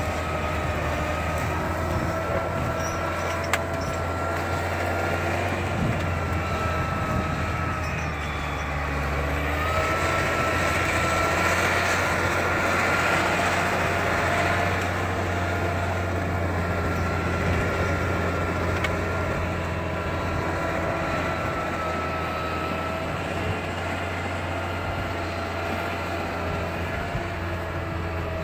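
Timberpro 840B forwarder's diesel engine running steadily with a high whine over it, growing louder for a few seconds around the middle.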